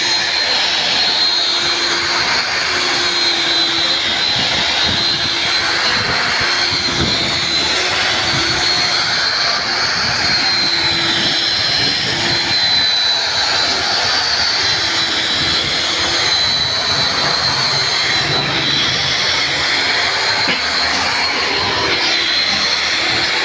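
Power grinder running steadily against an iron tawa (flat griddle), grinding and polishing its surface, with a high, slightly wavering whine over a harsh grinding hiss.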